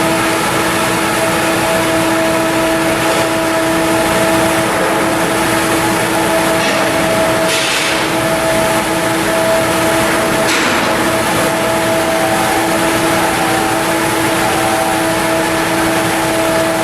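Steady shipyard machinery din: a constant two-note hum under a hissing noise, with a couple of brief swells of hiss partway through.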